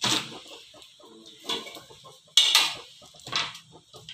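Short animal calls, four of them, the loudest about two and a half seconds in.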